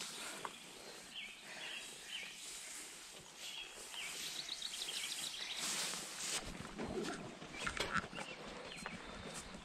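Faint songbirds chirping, with a quick run of repeated high notes about four seconds in. A brief rustle of tall grass underfoot follows a little past halfway.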